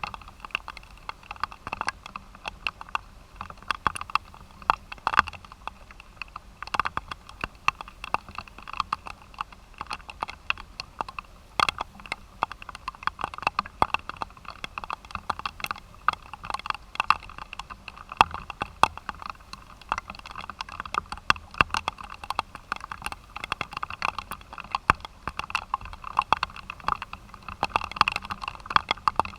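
Rain pattering close to the microphone: a dense, irregular run of sharp ticks as drops strike.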